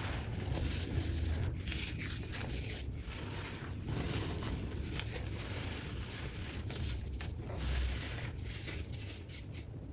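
Packed baking soda being crushed in quick succession: a dense run of crisp crunches and gritty scraping.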